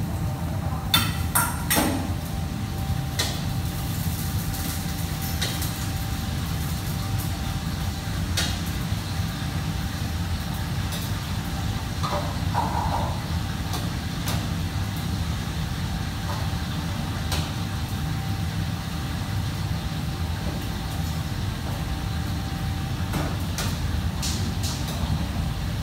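Commercial kitchen ambience: a steady low rumble with a faint steady hum over it, broken by scattered knocks and clatter from food prep at a steel counter, several sharp knocks close together about a second in.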